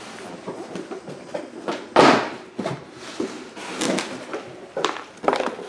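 Long cardboard rifle box being opened and handled: a run of rustles and knocks, the loudest a thump about two seconds in.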